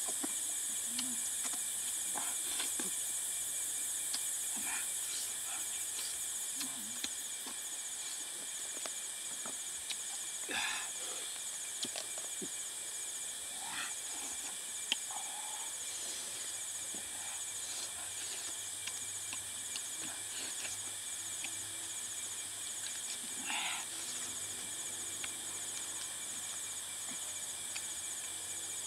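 Steady high-pitched chorus of rainforest insects, with a few short, scattered sounds over it.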